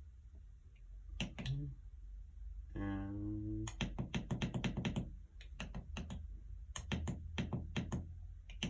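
A quick irregular run of small clicks and taps from electrical wires and plastic wire connectors being handled while the dimmer switch's black line-in wire is joined to the downlight's wiring.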